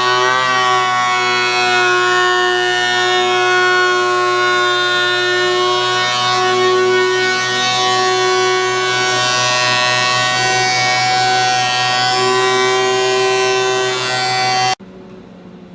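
Electric woodworking power tool running at steady speed, giving a loud, high whine with strong overtones. It cuts off suddenly near the end.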